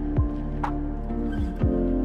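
Ambient, new-age style intro music with a sustained chord, cut through by quick falling sweep effects: one just after the start and two close together near the end.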